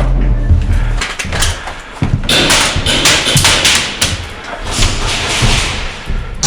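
Irregular sharp knocks and thuds of indoor airsoft play, such as shots and BB hits on walls and bunkers, mixed with rustling, over a low steady hum that drops away about a second in.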